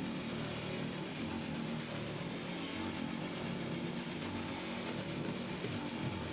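Motorcycle engines running steadily inside a globe of death, their hum even with no sharp revving.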